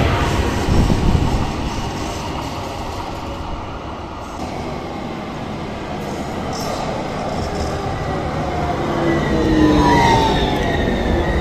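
AnsaldoBreda tram approaching and passing close by: a rumble of wheels on rail under the whine of its variable-frequency traction drive, whose several tones glide down in pitch. Loudest as it draws level, about ten seconds in.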